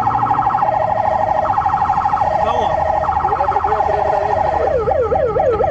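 Police car siren switching tones: a very fast pulsing warble for most of the time, changing near the end to a yelp that sweeps up and down about five times a second.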